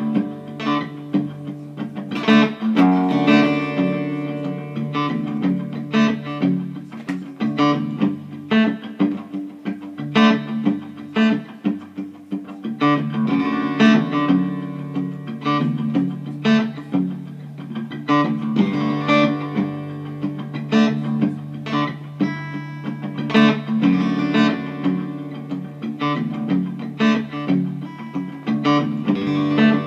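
Cutaway acoustic guitar played solo: a steady run of plucked notes over low notes left ringing.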